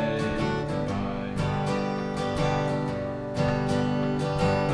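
Acoustic guitar strummed in a steady rhythm, chords ringing on between the sung lines of a slow country ballad.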